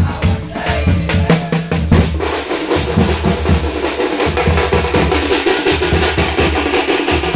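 Loud music of fast, driving drumming, dense repeated drum strikes over a deep low bass that cuts out and comes back in a few times.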